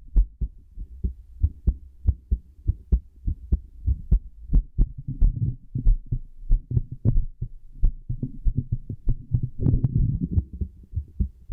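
Human heartbeat heard through a stethoscope: a steady run of low, paired lub-dub thumps, about one and a half beats a second. A short rush of noise comes under the beats about ten seconds in.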